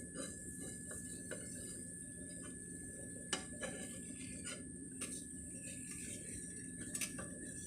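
Scattered light clicks and taps of a utensil against a skillet of cooking eggs, over a faint steady hum.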